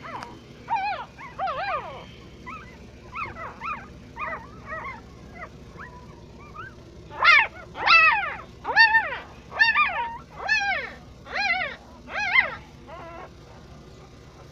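Newborn puppy crying in short, high-pitched squeals that rise and fall, each under half a second. They come quieter and spaced out at first, then about seven seconds in a louder rapid run of about nine cries.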